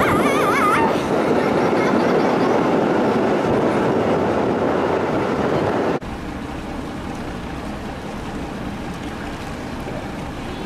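Loud, steady machinery noise aboard a car ferry, with a brief wavering squeal in the first second. About six seconds in it gives way to quieter, even noise.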